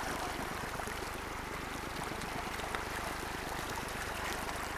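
Steady rushing of water along the shoreline, an even noise with no breaks.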